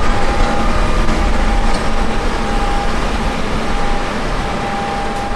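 Combine harvester running steadily under load: a loud low rumble with a steady high whine over it.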